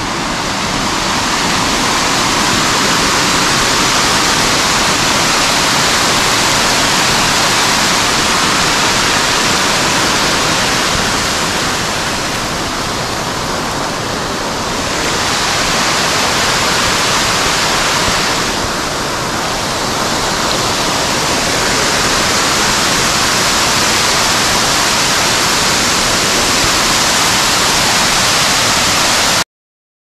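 Small creek waterfall pouring over a rock ledge into a pool: a loud, steady rush of water that eases briefly twice midway and cuts off suddenly just before the end.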